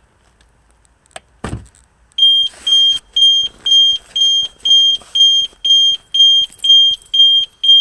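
Tesla Model S frunk latch releasing by hand with a click and a thump about a second in, then the car's security alarm going off: loud, high-pitched beeps at about two a second, set off by the frunk opening.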